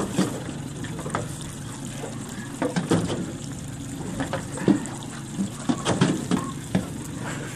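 Sea water lapping and splashing against the hull of a small aluminium boat, with scattered short knocks and clicks.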